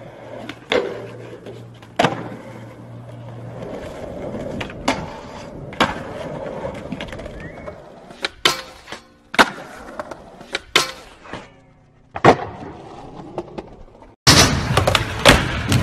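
Skateboard wheels rolling on hard pavement, broken by about eight sharp board cracks from pops and landings. Near the end it cuts abruptly to a louder, noisier stretch with more cracks.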